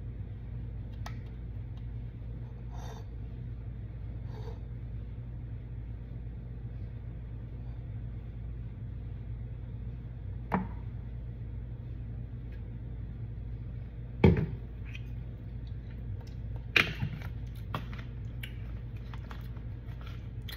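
Plastic squeeze bottle of yum yum sauce being squeezed, giving a few short squirts and sputters, the loudest about two-thirds of the way through, over a steady low hum.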